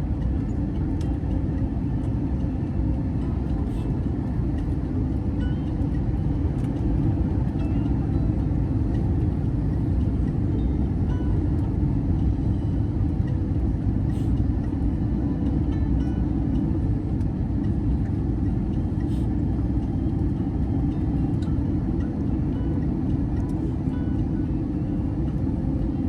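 Steady low rumble of cabin noise inside an Airbus A321neo airliner on its descent to landing: engine and airflow noise with no breaks.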